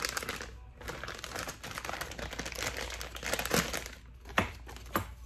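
Clear plastic zip-top bag crinkling as it is opened and handled, with two sharp clicks near the end.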